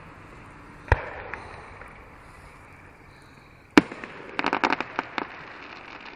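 Aerial fireworks going off: a single boom about a second in, then a louder sharp bang a few seconds later. The bang is followed at once by a quick run of crackling pops lasting under a second, from a crackling-star burst.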